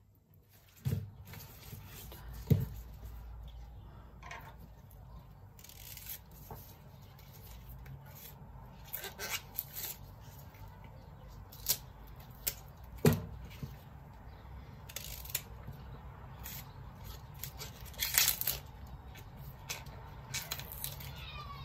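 Fresh leeks being handled and peeled: short crackling, tearing rustles as their leaves are stripped, with a few sharp knocks on the countertop, over a steady low hum.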